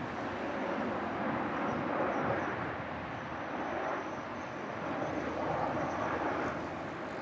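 Jet engines of a Boeing 737 airliner landing and rolling out on the runway: a steady, even rushing noise with no sharp events.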